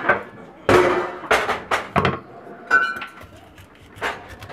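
A series of about six sharp thunks and knocks, irregularly spaced, as the hard, spiky husk of a frozen durian is cut and pried apart on a counter, with a brief clink near the middle.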